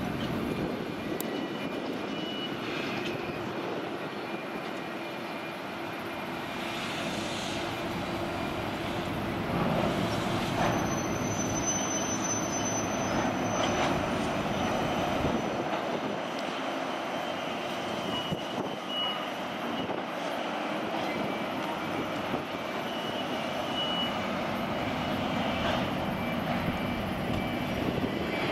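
Diesel shunting locomotive's engine running, a steady drone mixed with the general machinery noise of a container port. A faint high whine sounds for a couple of seconds near the middle.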